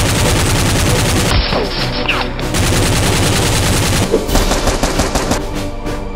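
Rapid automatic gunfire, a dense stream of shots, over background music.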